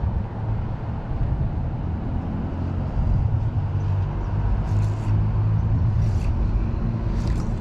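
A steady low rumble like distant traffic or a motor, with three faint sharp clicks in the second half.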